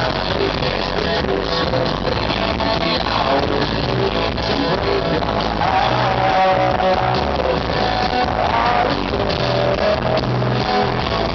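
Live rock band playing at full volume, with electric guitars, drums and a singing voice, heard from among the audience, so the sound is dense and loud.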